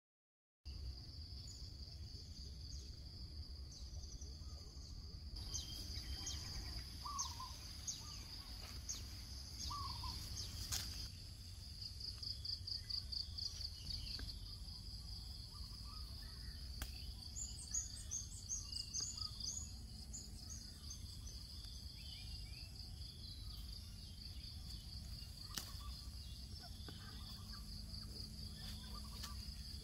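Garden ambience: a steady high-pitched insect trill that pulses rapidly, with a few scattered bird chirps and calls over a low background rumble.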